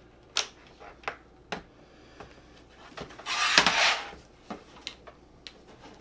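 Plastic snap clips of an Asus Vivobook F505ZA laptop's keyboard deck being pried loose with a thin pry tool run along the panel edge: a few sharp clicks, then about a second of scraping and crackling a little after three seconds in, the loudest part, then a few light ticks.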